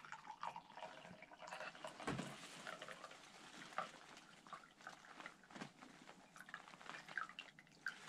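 Quiet sounds of drinking hot tea: small sips and slurps with light clicks and taps scattered throughout.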